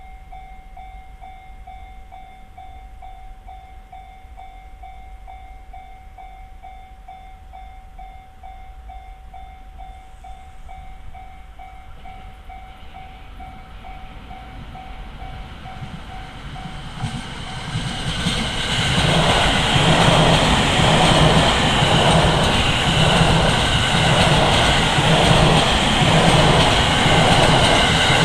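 JR standard electronic level-crossing alarm, an evenly repeating ringing tone. About 17 seconds in, a train rushes over the crossing and quickly becomes loud, with rhythmic wheel clatter, to the end.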